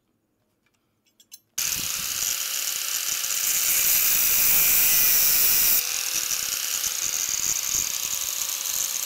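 Angle grinder with a thin cut-off disc cutting through ribbed steel rebar: a loud, steady, hissing grind that starts abruptly about a second and a half in, after a few faint clicks, and drops somewhat in level about six seconds in.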